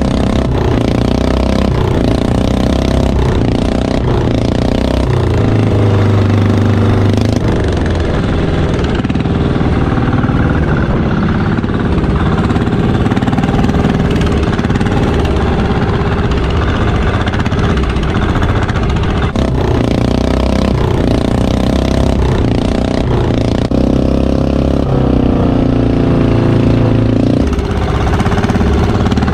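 Motorized outrigger boat's engine running steadily under way, loud and continuous, with a rush of wind and water behind it.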